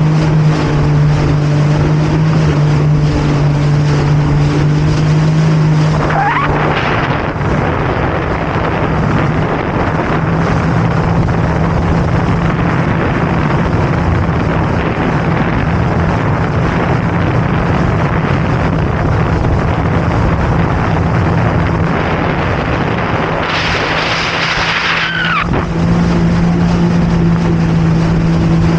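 Jet ski engine running at speed: a steady engine hum over a loud rush of noise. About six seconds in and again near the end, the steady note drops away for a few seconds while a brighter hiss and short whistling glides come through.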